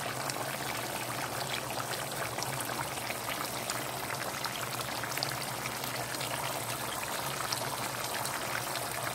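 Fish-head asam pedas gravy simmering in a pot: a steady bubbling with many small pops, over a steady low hum.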